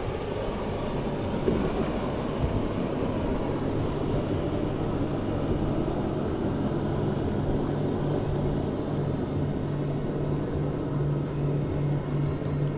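Boat motor running with a steady low hum that grows more prominent and evenly pulsing from about halfway through, over a continuous wash of noise.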